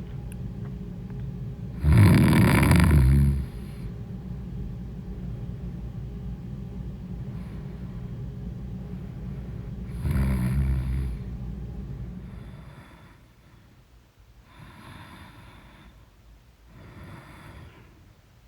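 A woman snoring in her sleep: two loud snores, about two and ten seconds in, then two fainter snoring breaths near the end. Under them a steady low hum fades out about twelve seconds in.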